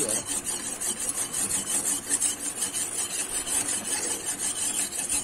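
Kitchen knife scraping and sawing against the skin of a whole Spanish mackerel, in quick repeated strokes about three a second.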